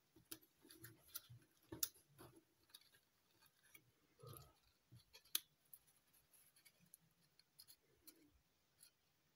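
Faint crinkling and scattered small clicks of foil-backed origami paper as modular units are pressed and slotted together into a cube. The sharpest clicks come about two and five seconds in.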